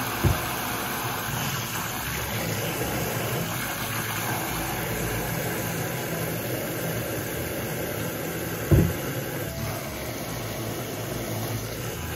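A pull-down kitchen faucet spraying steadily into a stainless steel sink filling with soapy water. Two short low thumps come through, one just after the start and one about nine seconds in.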